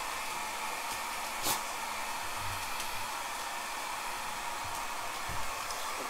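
Hand-held hair dryer blowing steadily, with a sharp click about one and a half seconds in.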